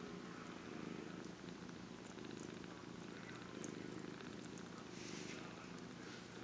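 Cats purring steadily during nursing, a low continuous purr.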